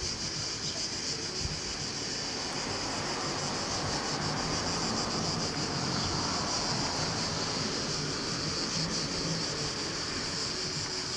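A chorus of cicadas buzzing in one steady, high-pitched drone, over a low rumbling background noise.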